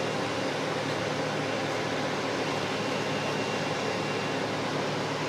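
An engine running steadily, a constant low drone with a hum.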